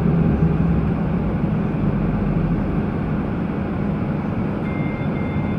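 Model train with its camera car running slowly along the layout's track: a steady motor hum with wheel-on-rail rumble. Near the end a high, thin beep comes in, sounding on and off.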